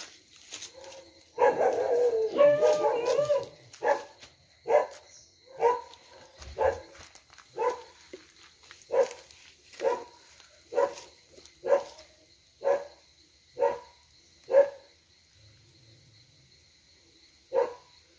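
A dog barking: a rapid, excited flurry of barks about a second in, then single barks at about one a second for roughly ten seconds, and one last bark near the end.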